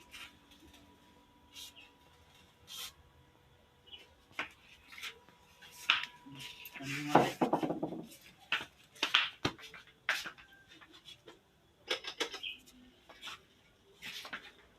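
Scattered metallic clinks and knocks, with a louder cluster about seven seconds in.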